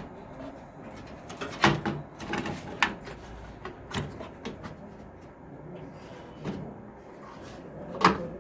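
Motherboard being handled and seated into a metal desktop computer case: a series of sharp clicks and knocks at uneven intervals, the loudest near the end.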